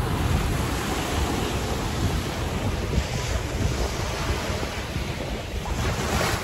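Wind buffeting the phone microphone over the steady wash of small waves on a sandy shore.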